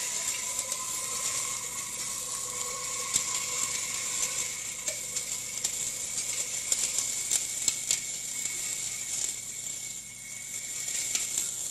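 Kubota GL338 tractor running a rear-mounted flail mower through grass, a steady mechanical whine with many scattered sharp ticks. The lower whine fades over the first couple of seconds as the machine pulls away.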